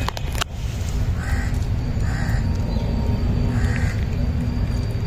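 Crows cawing: short caws about a second apart, over a steady low rumble, with a couple of sharp clicks at the very start.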